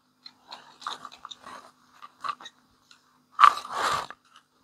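Small plastic clicks and scrapes as the plastic housing of an automatic transfer switch is pried at. About three and a half seconds in comes a louder crunching rattle as the locked control module comes free of the case.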